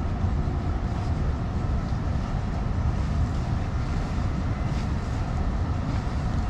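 Steady low rumble of city street traffic, with no single event standing out.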